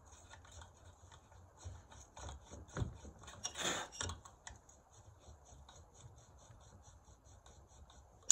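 Torx bit being twisted and scraped in the head of a stuck cylinder screw on a Stihl 090 chainsaw to clear the screw head out: faint, uneven metal scraping and small clicks, with a louder scrape about three and a half seconds in.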